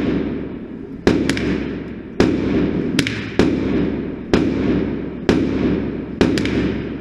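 .22 LR semi-automatic gunshots, about nine single shots fired at an uneven pace, some in quick pairs, each trailing off in a short echo.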